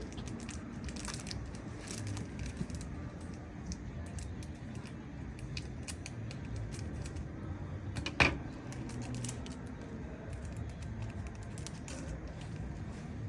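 Light clicking and rustling of Pokémon trading cards and pack wrappers being handled, over a low steady hum, with one sharp knock about eight seconds in.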